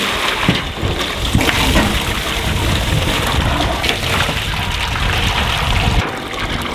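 Water from a ditch-fed pipe pouring steadily into galvanized steel washtubs, splashing onto the water and laundry in them.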